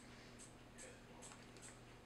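Near silence: faint soft ticks and rustles, about two a second, of a needle and thread drawn through a plush teddy bear's seam as it is hand-stitched closed, over a low steady hum.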